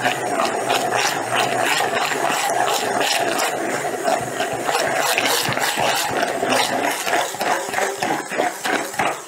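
Hand immersion blender running in a plastic beaker, churning a thick mix of raw lamb, olive oil and eggs: a steady motor whine with constant clicking and clattering of the blade in the stiff mixture. It cuts off about nine seconds in.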